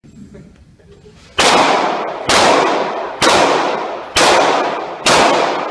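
Five shots from a semi-automatic pistol, fired at an even pace a little under a second apart. Each shot is followed by a long echoing tail.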